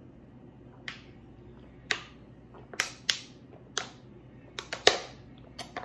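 Thin plastic water bottle crackling and popping as it is drunk from: a series of sharp, irregular clicks, closer together in the second half.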